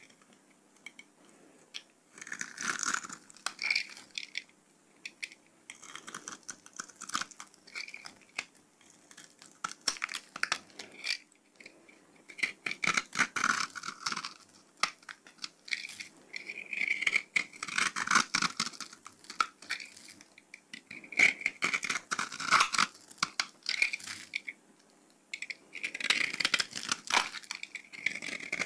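Bars of dry soap cut and shaved with a snap-off utility knife blade, crisp crunching and crackling strokes in irregular bursts with short pauses between.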